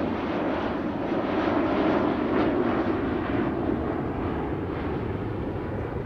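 Avro Vulcan bomber's four Rolls-Royce Olympus turbojets as it flies past overhead: a continuous jet roar, loudest about two seconds in, then slowly easing.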